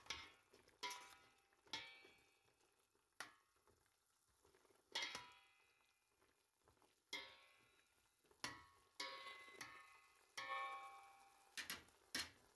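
Metal spoon stirring peppers in a stainless steel pot: faint, scattered clinks against the pot, about a dozen light knocks, each with a short ring, amid near silence.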